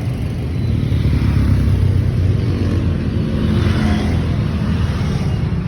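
Motor vehicle running: a steady engine rumble with road noise.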